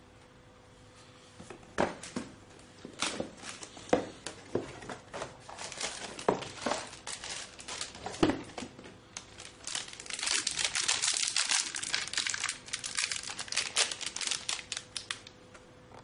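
Packaging crinkling and rustling while a motherboard I/O shield is taken out, with sharp clicks and knocks through the first half and a denser run of crinkling about ten seconds in, dying away near the end.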